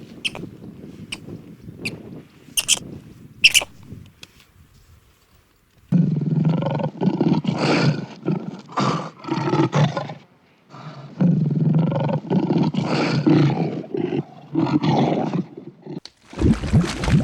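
A large animal giving loud, low calls in two long bouts, the first starting about six seconds in and the second about a second after it ends. Before them come a few sharp clicks.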